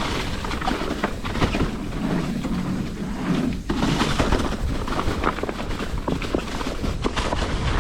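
Hardtail mountain bike riding down a leaf-covered dirt trail: tyres rolling over leaves and dirt under a steady rushing noise, with many sharp rattles and knocks from the bike over the rough ground.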